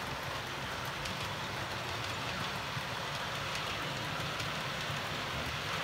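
OO gauge model train running on the layout: a steady whirr from the diesel locomotive's motor and wheels rolling on the track, with faint clicking.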